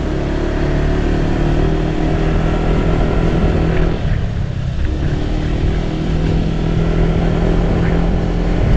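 Vehicle engine running at a steady pitch over constant low road rumble. The engine note eases off briefly about four seconds in, then comes back.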